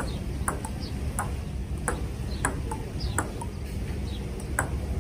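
Table tennis ball hitting the bats and a Butterfly Ultimate outdoor table in a rally. The sharp clicks come about every two-thirds of a second.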